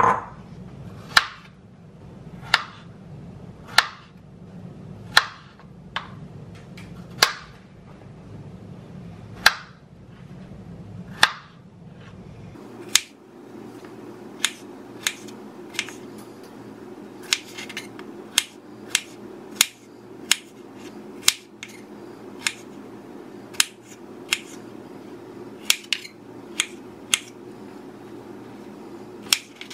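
Chef's knife slicing strawberries on a cutting board: sharp knocks as the blade meets the board. The knocks come about one every second and a bit at first, then faster and more irregular from about 13 seconds in.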